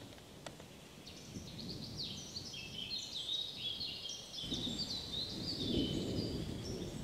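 Small birds chirping and twittering in quick overlapping notes, over soft footsteps and rustling of people walking through dry grass and bracken, heavier in the second half.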